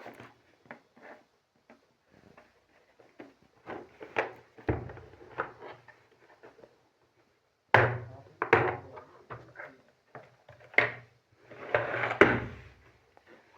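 Irregular clicks, knocks and scuffing from handling the packaging and parts of a cordless drill kit as it is unboxed, with louder clusters of knocks about 4, 8 and 12 seconds in.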